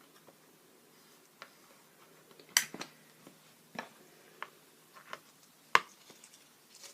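Scattered short taps and clicks of art materials and tools being handled, about half a dozen in all, the two loudest about two and a half and nearly six seconds in.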